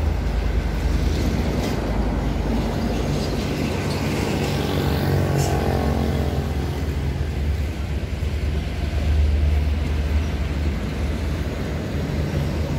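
Diesel engine of a Mercedes-Benz truck idling with a steady low hum. Around the middle, an engine note briefly swells and shifts in pitch.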